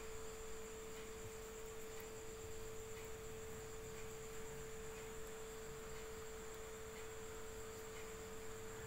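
Faint steady hum on one pitch over low background hiss, with faint ticks about once a second.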